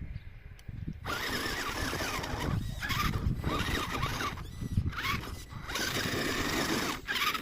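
Electric motor and gear drive of a 1/10 scale RC rock crawler whining as it climbs over rocks, starting about a second in and going in a series of bursts with short pauses, its pitch wavering as the throttle changes.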